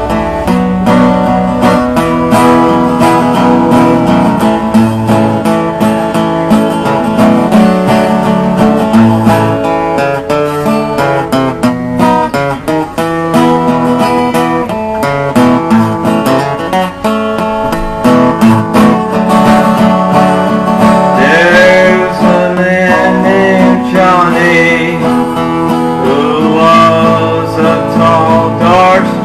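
Acoustic guitar playing the opening of a song, with a singing voice coming in about two-thirds of the way through.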